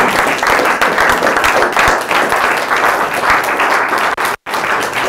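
Audience applauding: dense, steady clapping from a roomful of people, with two brief cut-outs near the end.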